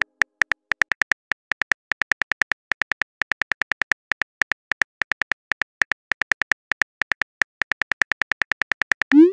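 Phone keyboard tap clicks, quick and uneven at about six or seven a second, as a text message is typed out. They end just before the close with a short rising whoosh of the message being sent.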